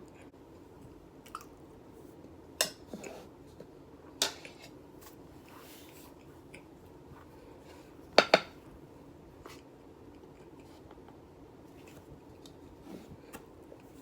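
A spoon clinking against a dish: a handful of separate sharp clinks spread out over several seconds, the loudest a quick double clink about eight seconds in.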